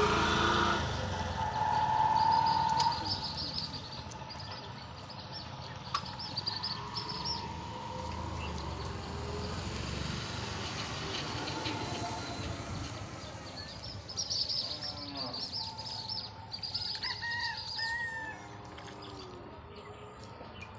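Birds chirping in short bursts of high, rapid calls, twice in clusters, over a steady low outdoor background.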